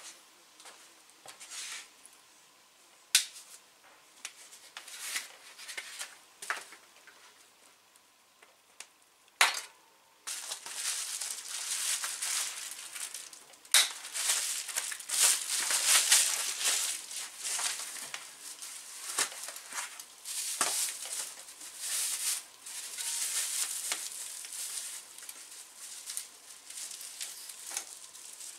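Plastic packing wrap being pulled off and handled. A few sharp clicks and knocks come first, then from about ten seconds in there is a continuous crinkling, crackling rustle.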